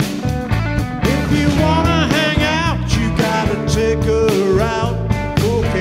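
Blues-rock band playing with electric guitars, bass and drums in a steady groove. From about a second and a half in, a lead line rises above it, bending and wavering in pitch.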